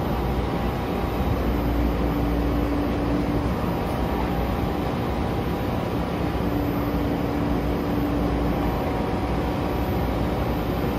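SEPTA Market-Frankford Line train running with a steady low rumble, and a steady hum that drops out twice for a few seconds.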